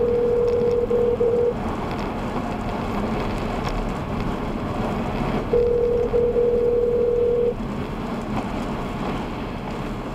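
Telephone ringback tone of a call ringing unanswered, in the North American pattern of two seconds on and four seconds off. It sounds at the start and again about five and a half seconds in, over steady tyre and rain noise in a moving car.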